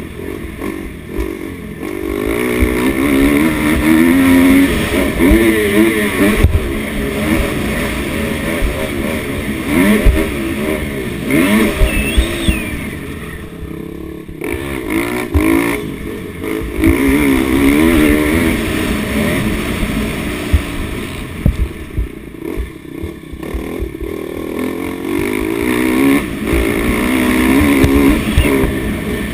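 Dirt bike engine revving hard and dropping back again and again as the rider accelerates and shuts off around a motocross track, with occasional thumps.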